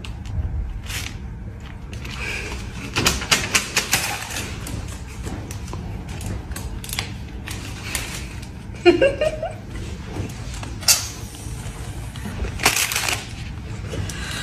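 Crinkling and rustling of a paper envelope being handled, heard as bursts of sharp clicks, with a brief voice-like sound about nine seconds in.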